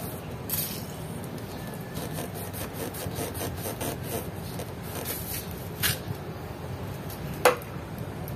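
Cloth rag rubbing and wiping on a scooter's handlebar, working WD-40 in to clean off rust, with two short hisses from the WD-40 aerosol can. A sharp click near the end is the loudest sound.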